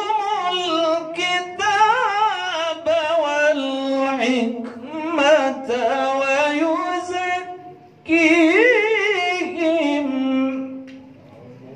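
A man's melodic Quran recitation (tilawah), sung into a handheld microphone in long, ornamented phrases with wavering pitch. There is a short breath pause about eight seconds in, then one more phrase that fades out near the end.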